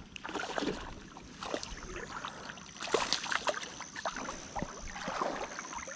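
Irregular splashing and short clicks as a small hooked largemouth bass is reeled in and fights at the surface of a creek, with a faint steady high tone throughout.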